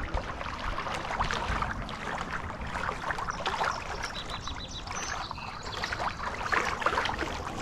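Water lapping and splashing, an uneven run of small sloshes.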